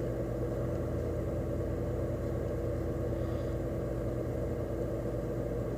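Steady low mechanical hum with a few fixed tones, like room tone from a running appliance or ventilation, unchanging throughout.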